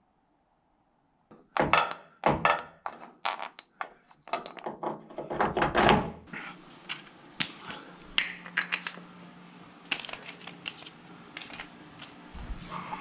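An irregular run of heavy thunks and metal clanks, densest and loudest in the first few seconds, from jacks, jack stands and cribbing blocks being shifted. A low steady hum comes in about four seconds in under lighter clinks.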